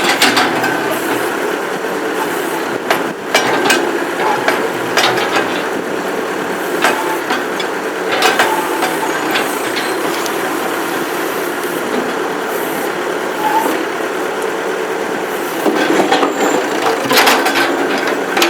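Massey Ferguson 50A backhoe running steadily while digging at a tree stump, with sharp clanks and knocks from the bucket and boom scattered through, several in quick succession near the end.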